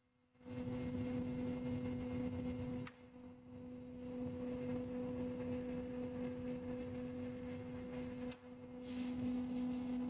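Single-phase axial cooling fan running, its motor giving a steady hum over the rush of air. A short click and brief dip in the sound come about three seconds in and again near the end.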